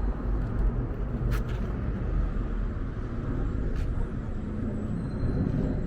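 Steady low rumble of city street ambience with traffic, with a couple of faint clicks.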